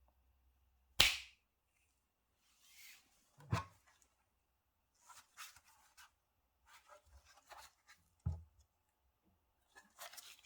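Hands working on PC parts during assembly: a sharp click about a second in, two dull knocks later on, and light rustling and small clicks of handling between them.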